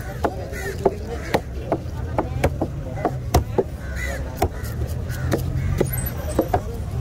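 Heavy machete-like knife chopping tuna flesh into cubes on a thick wooden board: a run of sharp knocks as the blade cuts through and strikes the wood, about two a second.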